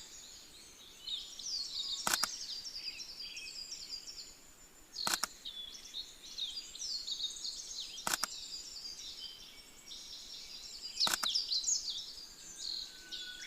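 Several small songbirds singing at once in a dense, high chorus, a common chiffchaff among them. A sharp click comes about every three seconds.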